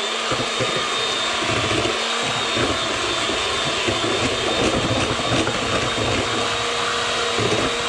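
Electric hand mixer running steadily, its beaters whisking raw eggs in a bowl, with a steady motor whine.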